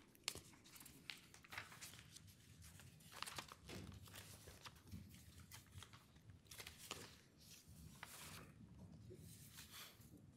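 Near silence in a room, broken by faint paper rustling and scattered small clicks and knocks.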